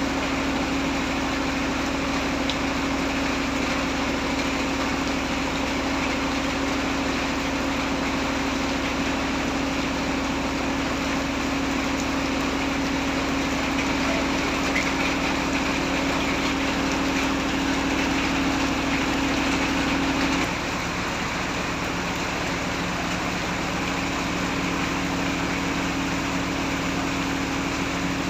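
Heavy rain falling as a steady, dense hiss, with a steady low mechanical hum underneath that drops to a lower pitch and gets slightly quieter about two-thirds of the way through.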